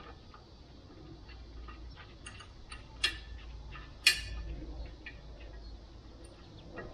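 Light clicks and taps of hand tools on an aluminium wheel rim and sealer can while a new valve stem is fitted, with two sharp clicks about three and four seconds in.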